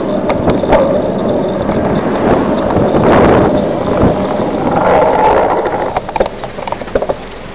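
Wind rushing over a bicycle-mounted camera's microphone along with the noise of the moving bike on the road. The noise is loud and steady, then drops off about six seconds in as the bike slows behind the lorry, leaving scattered clicks.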